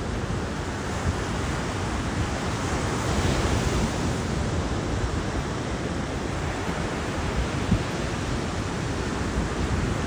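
Ocean surf washing steadily on a beach, with wind rumbling on the microphone.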